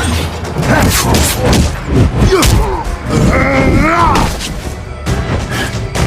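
Loud music mixed with repeated thuds and crashes, like action-film sound effects.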